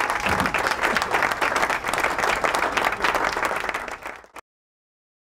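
Crowd applause, a dense steady clatter of many hands clapping, that cuts off abruptly about four seconds in.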